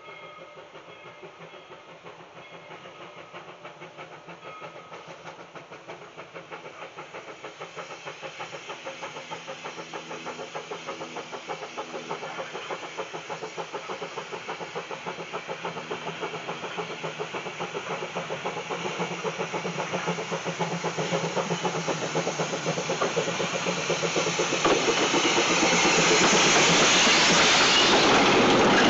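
Two-foot-gauge steam locomotive Bridgton & Saco River #7 approaching with a mixed train, its exhaust chuffing in a steady rhythm that grows louder and louder. About 25 seconds in, the sound jumps to a loud rush of steam and rolling cars as the train reaches and passes.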